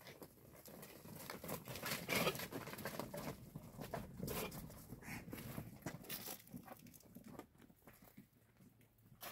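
Goats' hooves clattering and scuffling on stony ground as the herd crowds through a doorway, a dense run of small irregular crunches and clicks that thins out near the end.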